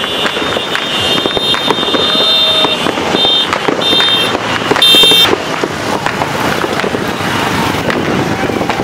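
New Year fireworks and firecrackers popping and crackling densely. A high, piercing tone is held over them for the first few seconds, then sounds in short blasts and stops about five seconds in, the loudest moment.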